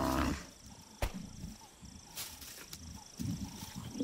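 A Cape buffalo bull's long distress bellow cuts off just after the start. Low, short grunts follow during the struggle with the lions, with a sharp knock about a second in.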